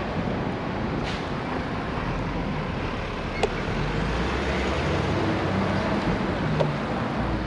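Road traffic at an intersection, dominated by an articulated container truck's diesel engine running as it turns past close by, a low drone that strengthens from about two seconds in. A single short click sounds a little before the middle.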